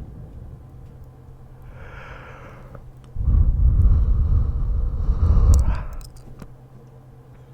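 A man yawning close to the microphone: a soft breathy intake about two seconds in, then a long, loud breath out that blows onto the mic for about three seconds, with a few small clicks as it ends.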